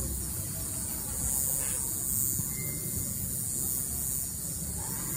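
Steady high-pitched chorus of night insects over a low rumble, with one brief faint tone near the middle.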